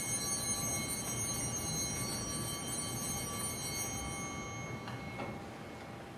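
Altar bells rung at the elevation of the host during the consecration, a cluster of bright ringing tones that linger and die away about four to five seconds in.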